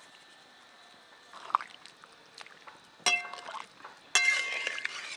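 Chopped tomatoes dropped into a wok of simmering curry, then two sharp clinks on the metal wok about three and four seconds in, each ringing on briefly.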